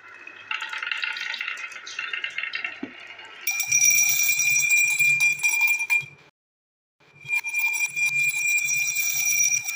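Marbles rolling and rattling down a snaking groove in a wooden slope, then dropping one after another into a small glass tumbler, which clinks and rings with a steady high tone. The sound cuts out abruptly for under a second midway, then the clinking and ringing start again.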